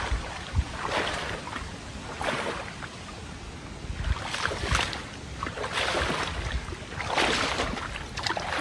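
A person wading through knee-deep swamp water, the water sloshing and splashing in an uneven surge with each stride.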